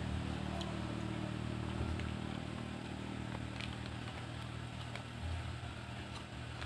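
Steady low mechanical hum with scattered faint clicks.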